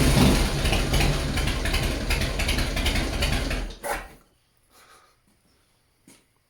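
Harley-Davidson Softail V-twin being turned over by its electric starter on the first start attempt after a cam change; the cranking stops abruptly about four seconds in, followed by a few faint clicks.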